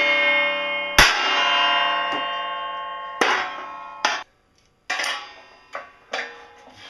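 Claw hammer blows on a metal sheet being bent over an edge. Each heavy blow leaves the plate ringing with many tones that fade slowly: one about a second in, then two more at about three and four seconds. Several shorter, lighter metal clanks follow near the end.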